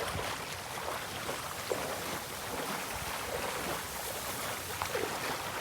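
Steady wind and water noise, with a few faint small knocks and splashes.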